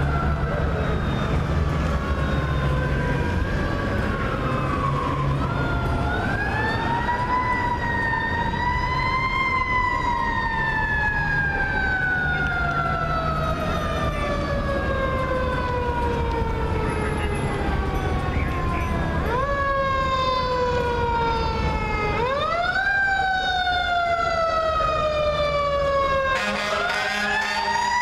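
Federal Q mechanical siren on a fire engine, spun up to a high pitch and then coasting down slowly in long falling glides, wound up again several times. The engine's air horns sound near the end.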